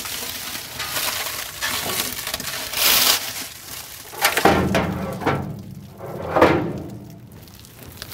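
Plastic wrap crinkling and rustling as it is pulled off cabinet shelves and crumpled up, with louder rustles about three seconds in and again midway through.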